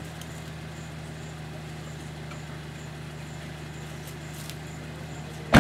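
A parked car's engine idling with a steady low hum, then a car door shut with a sharp, loud bang near the end.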